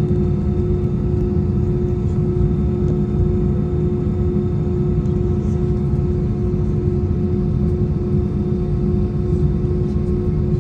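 Airbus A320's jet engines running steadily, heard inside the cabin as a deep rumble with a constant hum over it.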